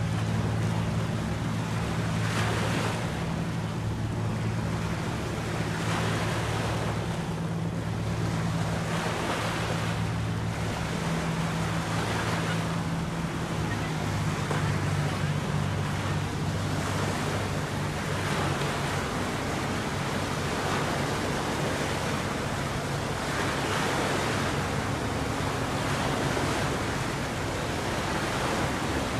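Waves washing on the shore in swells every couple of seconds, with a steady low hum that fades out about halfway through.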